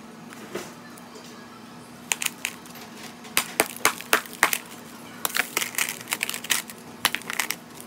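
Hammer striking slabs of hard dry ice and cracking them into chunks: quick runs of sharp knocks and cracks that begin about two seconds in, with the busiest stretch near the end.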